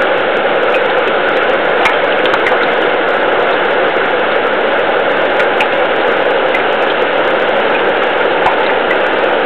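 River current heard underwater: a loud, steady rushing hiss with scattered faint ticks and clicks.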